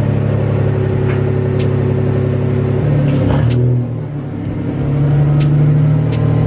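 First-generation Toyota Tacoma's engine running steadily. A little before halfway its note drops and wavers as the truck is put under load and moves off, then it picks up and runs steady and a bit louder. A few sharp clicks sound over it.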